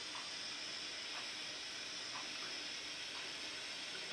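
Butane soldering iron burning with a steady gas hiss.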